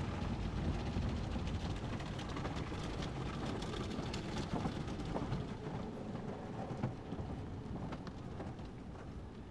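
Water spraying and pattering on a car's glass and body in an automatic car wash, heard from inside the car; it fades out near the end.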